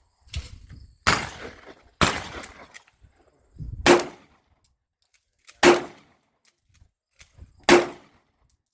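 Pistol shots from a CZ P10 SC subcompact 9 mm handgun: five single shots fired at a measured pace, one to two seconds apart, each with a short echoing tail.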